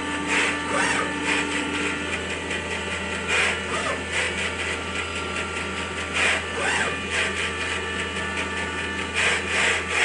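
CNC milling machine running a drilling program with a 3.5 mm drill: a steady machine hum with several constant tones, and brief, louder rushes every few seconds as the spindle works.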